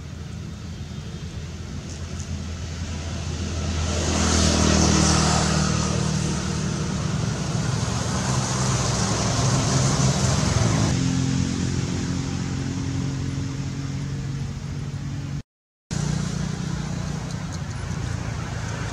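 A motor vehicle's engine running with a steady low hum that grows louder about four seconds in, as if passing close by, and eases off after about eleven seconds. The sound cuts out completely for a moment near the end.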